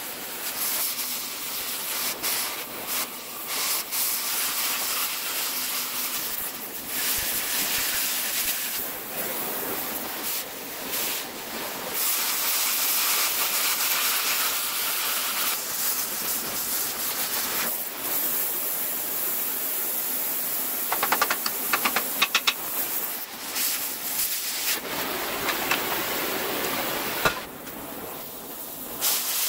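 Oxy-fuel cutting torch hissing loudly as it cuts steel brackets off an axle housing. The hiss dips briefly several times, and a quick run of sharp crackles comes about two-thirds of the way through.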